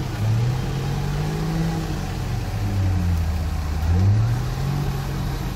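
Off-road 4x4's engine revving up and down as it crawls through deep mud. The pitch rises, falls about halfway through, then climbs again.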